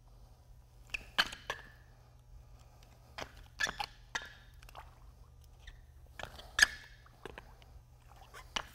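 Faint scattered clicks and scuffs from a plastic bucket being handled and shoes shifting on concrete while mixed MMA resin is poured out in ribbons, over a low steady hum. The sharpest click comes about six and a half seconds in.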